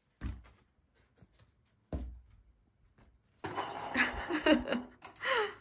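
Two soft knocks about two seconds apart, then, from about halfway, a high voice-like sound whose pitch slides up and down, over a rustling noise, for about a second and a half, and a short sliding call just before the end.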